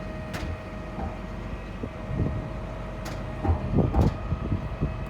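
A heavy vehicle's engine running steadily with a few sharp metallic knocks, such as a shipping container being moved and set.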